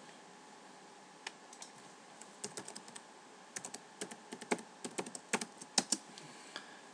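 Typing on a computer keyboard: irregular single keystrokes and short quick runs, starting about a second in and coming thickest in the second half.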